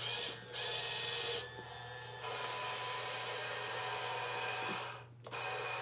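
Electric motors of a 1:12 scale RC CAT excavator whirring as they drive the boom, arm and bucket, with a steady hum underneath; the whirring drops back briefly three times as the movements stop and start.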